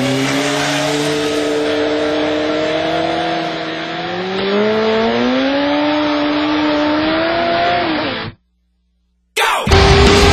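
Sportbike engine running hard at high revs, its pitch climbing steadily with a short dip and then rising again partway through. It cuts off suddenly a little past eight seconds, and after a second of silence loud heavy music starts near the end.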